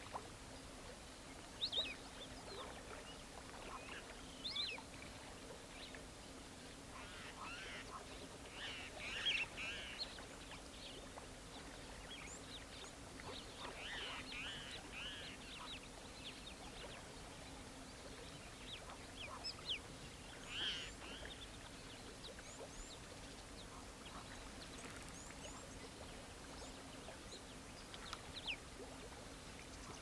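Birds calling: scattered short chirps and calls, busiest in two stretches about a third and halfway through, over a faint steady low hum.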